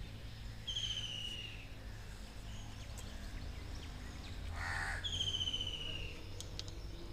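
A bird calling twice, about four seconds apart; each call is a high, buzzy note that falls slightly in pitch over about a second.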